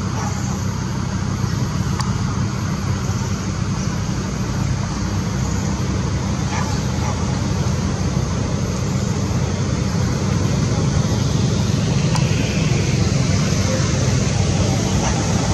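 Steady low rumble of road traffic, with a hiss above it and no breaks.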